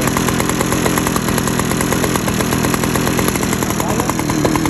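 Gas leaf blower's small engine running steadily, just after being pull-started.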